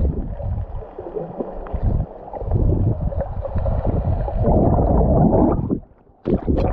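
Water sloshing and gurgling, heard muffled through a GoPro held underwater: a dense low rumble that dips away briefly about six seconds in, followed by a few short splashes.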